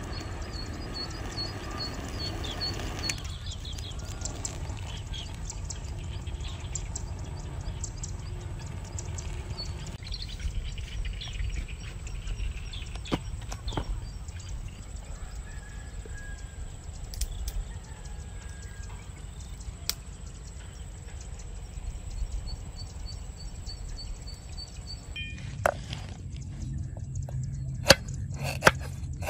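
Outdoor ambience with a low steady rumble and a small bird chirping in quick, evenly spaced series at the start and again later. Near the end, a knife chops garlic cloves on a wooden chopping block: a few sharp knocks.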